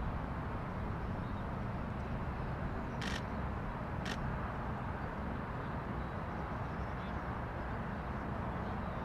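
Steady low outdoor background noise with two short sharp clicks, about three and four seconds in.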